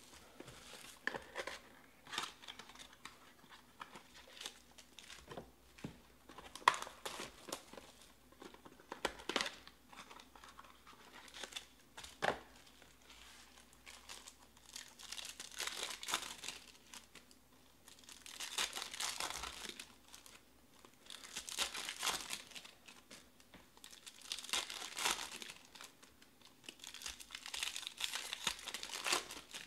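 Plastic wrap and foil trading-card pack wrappers crinkling and tearing as a 2020 Topps Finest Baseball box and its packs are ripped open. Scattered sharp crackles in the first half give way to a series of longer crinkling bursts about every three seconds.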